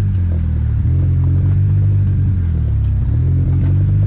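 Side-by-side UTV engine running steadily at low speed as the vehicle drives along the trail, close to the microphone, its pitch dipping slightly and coming back up in the middle.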